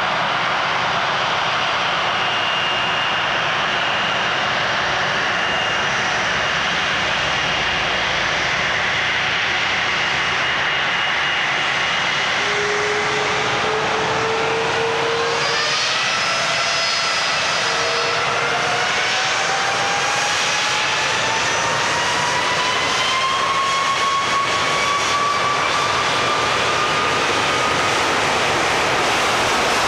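Airbus A330 twin jet engines running close by, then spooling up from about halfway, their whines rising steadily in pitch as the airliner rolls past.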